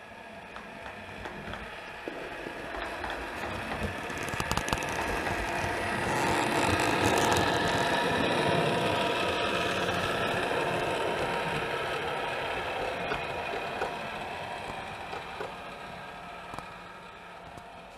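OO gauge model train running past on its track: the wheels and motor make a mechanical running noise with steady tones and clicks. It grows louder as the train approaches, is loudest midway, then fades as it moves away.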